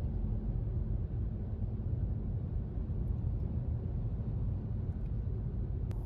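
Steady low rumble of tyre and engine noise heard inside a car cruising on a motorway at about 112 km/h.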